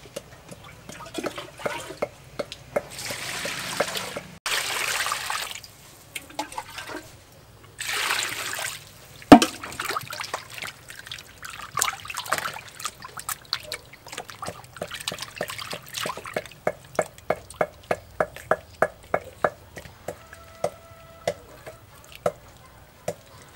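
Raw chicken breasts being washed by hand in water in a large stainless steel bowl: water splashing and sloshing, with a few brief rushes of water in the first nine seconds. There is a sharp knock about nine seconds in, then a run of quick rhythmic splashes, about four a second, in the second half.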